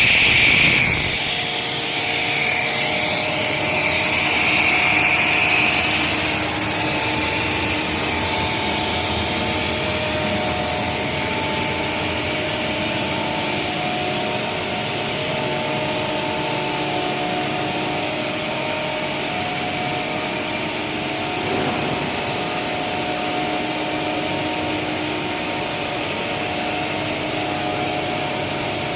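Pre-stressed plastic tube extrusion machine running: a steady machine drone with a constant high whine and several steady hum tones. A louder hiss sits over it in the first few seconds, then eases off.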